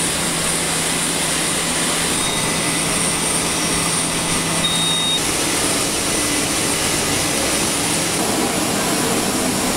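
Steady, loud engine noise with a high whine from aircraft engines and a rough-terrain forklift running beside a C-130 cargo plane as it is loaded.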